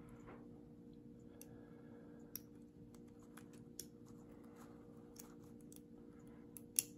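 Faint, scattered metallic clicks of a lock pick and tension wrench working the pins of a Lockwood padlock, spaced about a second apart with a sharper click near the end, over a faint steady hum.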